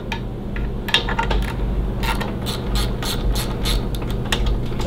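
Hand ratchet wrench clicking in quick, uneven strokes as a bolt is turned on a motorcycle's triple tree.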